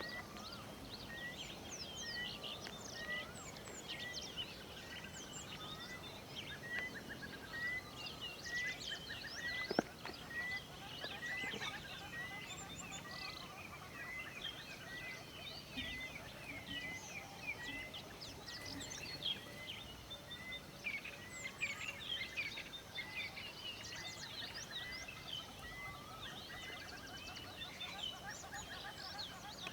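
Birds chirping and trilling all round, with one bird repeating a short note about once a second. A single sharp click comes about ten seconds in.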